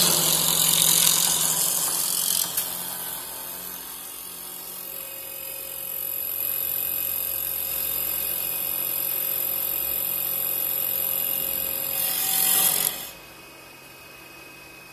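CNC wood lathe cutting a spinning wooden workpiece: a loud rasping cut at first that eases after a couple of seconds into a steadier, quieter cut with a thin high whine from the machine. A short louder burst of cutting comes just before the sound drops away suddenly near the end, leaving a low hum.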